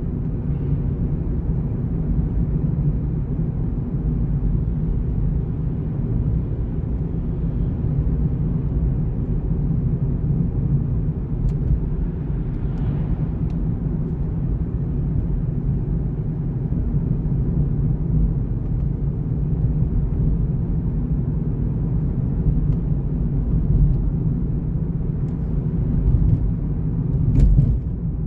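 Car driving along a paved road, heard from inside the cabin: a steady low rumble of tyre and road noise, with a few faint clicks.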